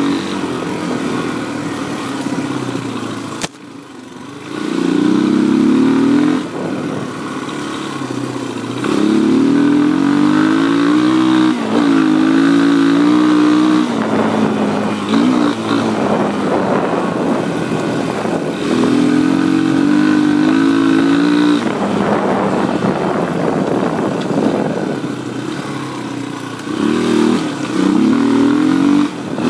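Honda XR200 dirt bike's single-cylinder four-stroke engine running under way, its pitch repeatedly rising and falling with the throttle. A sharp click comes about three and a half seconds in, followed by a brief drop in level.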